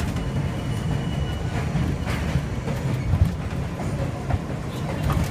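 R42 subway car running along elevated track, heard from inside the car: a steady rumble with wheels clacking over rail joints, and a louder knock about three seconds in.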